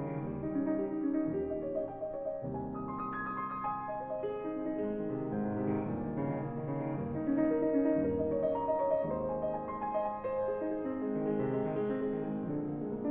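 Background music: classical piano playing, several notes sounding together and changing every second or so.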